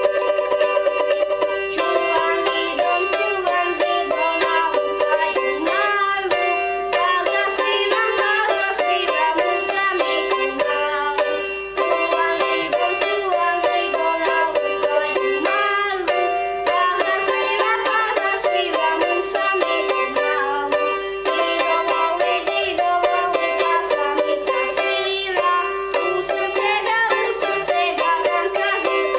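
Samica, a small Slavonian folk tambura, played with fast, even plucking: a lively melody over one note held steady underneath.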